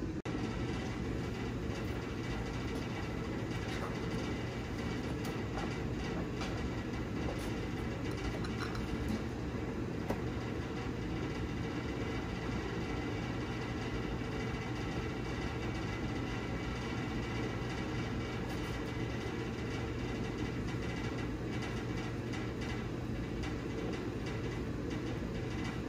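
Steady hum and rush of a running shop heater, with a couple of faint taps as the camshaft is eased into the small-block Chevy 350's cam bearings.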